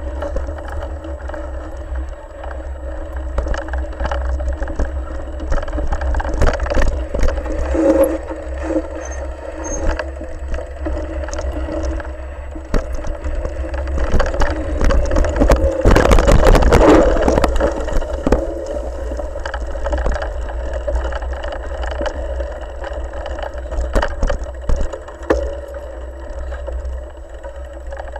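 A bike ridden over a rough, leaf-strewn dirt trail, heard from a handlebar-mounted camera: a steady low rumble of wind and vibration with frequent rattles and knocks. The rattling is thickest and loudest about halfway through.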